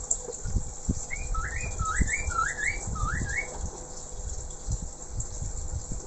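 A male poksay mandarin (Chinese hwamei) sings a quick phrase of about six clear whistled notes, each sweeping upward, lasting a little over two seconds. A steady low rushing noise runs underneath.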